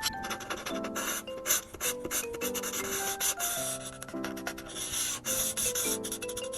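Paper cutouts being handled, rubbing and rustling in quick irregular strokes, over a simple background melody.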